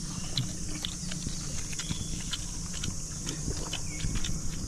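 Irregular small clicks and smacks of people chewing and eating, over a steady high insect drone.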